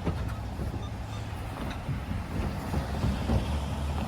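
Low, steady rumble of road traffic at a grade crossing, with some wind on the microphone.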